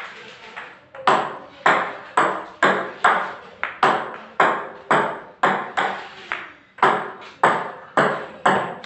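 Ping pong ball bounced over and over, a sharp tap about twice a second, each tap trailing off in a short room echo.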